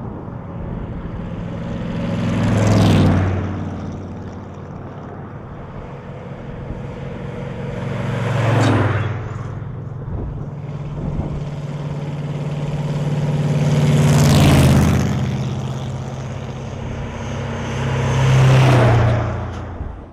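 A caravan of rat rods, old rusty trucks rebuilt as hot rods, driving past one after another on a highway. Four engines swell up and fade as each goes by, about every five seconds.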